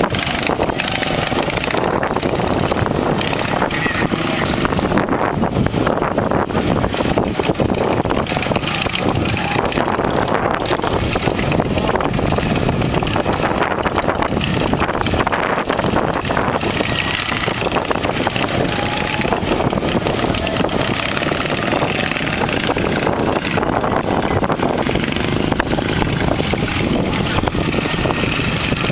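Several racing lawn mowers' small engines running steadily as they race laps around the track.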